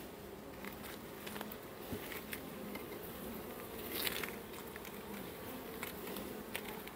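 Honeybees buzzing steadily around an open nucleus hive during a frame-by-frame inspection, with a few light clicks scattered through.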